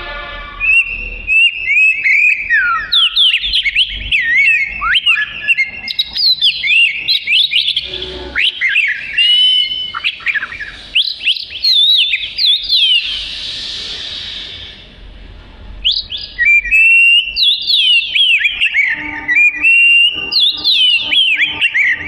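Oriental magpie-robin (kacer) in full song: a rapid, varied run of loud whistled phrases with quick sweeping notes, pausing briefly about two-thirds through before starting again.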